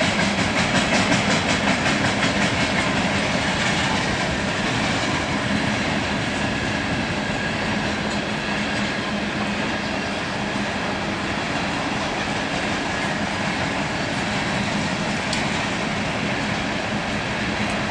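Coal train of CSX open-top hopper cars rolling past at steady speed: a continuous rumble and steel rail noise, with wheels clicking rhythmically over rail joints, most clearly in the first few seconds.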